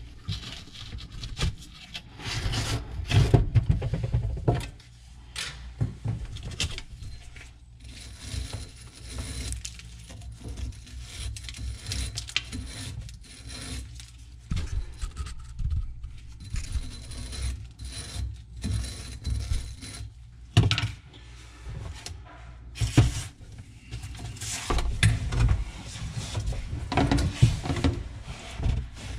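Small wire brush scrubbing the threads inside a brass drain fitting: irregular scratchy, rasping strokes, heaviest in a few spurts.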